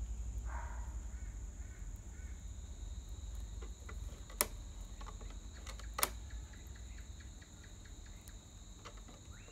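Soldering iron melting through the hard plastic of a 2-litre soft drink bottle: a faint crackle about half a second in, then two sharp clicks about a second and a half apart. Under it all is a steady low hum and a high-pitched whine.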